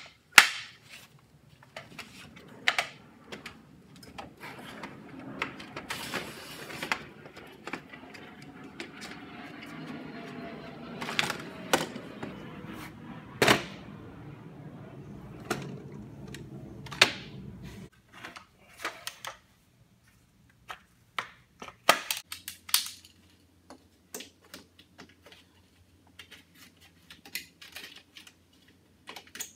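Scattered clicks and knocks of wooden jig parts and hardware being handled, as a folding wooden saw shelf is swung and set and a collapsible boom arm is moved. A low steady hum sets in near the end.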